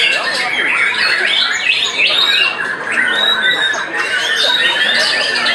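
White-rumped shamas (murai batu) in full song at once, a dense, unbroken tangle of fast whistles, trills and chattering notes from several caged birds singing against each other.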